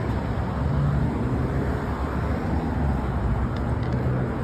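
Car driving at a steady pace: a constant low rumble of engine and road noise.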